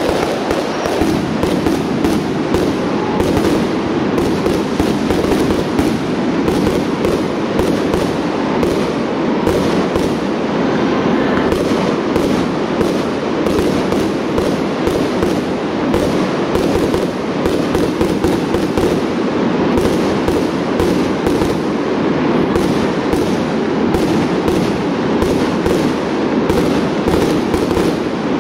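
Professional fireworks display: aerial shells and crackling effects bursting in rapid, unbroken succession, several bangs a second over a continuous crackle.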